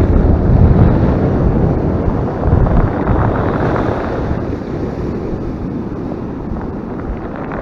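Strong wind buffeting the microphone over the wash of heavy, rough-sea surf breaking and foaming ashore. Loud at first, easing a little toward the end.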